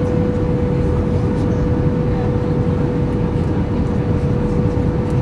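Airbus A320 cabin noise on approach: a steady low rumble of engines and rushing air, with a constant droning tone running through it.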